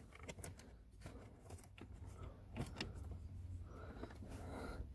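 Faint rustling and scattered light clicks of loose wiring being tucked into a gap behind car interior trim, over a low steady hum.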